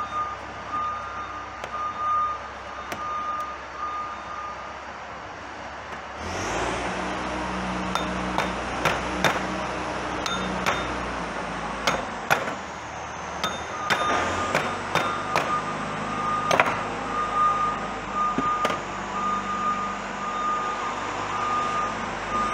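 Sharp metal clinks and knocks as the ring gear bolts are taken out and the ring gear is lifted off the differential. Behind them an electronic alarm beeps steadily, and about six seconds in a vehicle engine starts running and keeps going.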